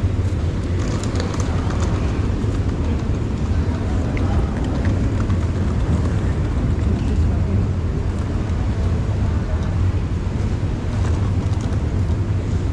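Busy railway station concourse ambience: a steady low rumble under the indistinct chatter of a walking crowd, with faint scattered ticks and clatter.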